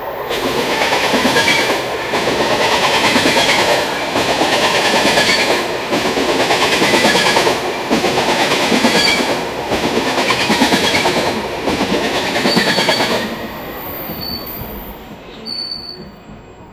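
Freight train passing close by: heavy rolling rumble of steel wheels on rail, swelling and dipping about every two seconds as the cars go by, with faint metallic wheel squeal. About thirteen seconds in it fades as the train draws away, leaving a few short high squeals near the end.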